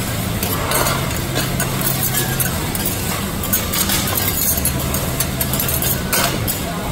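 Two metal spatulas scraping and clicking on a teppanyaki iron griddle as mutton, onion and green onion are tossed and stir-fried, over a steady low mechanical hum.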